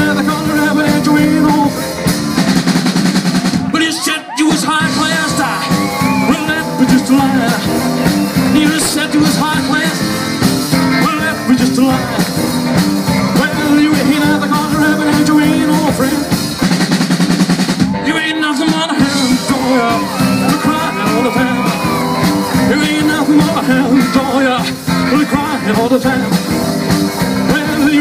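Live rock and roll band playing with keyboard, electric guitar, bass guitar and drum kit. The band drops out briefly about four seconds in and again around eighteen seconds in.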